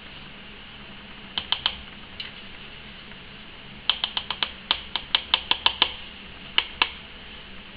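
Light, sharp plastic clicks of a small plastic spoon tapping against a small jar of mica powder as the powder is knocked into a cup of soap batter. Three quick clicks come first, then a rapid run of about a dozen, then two more.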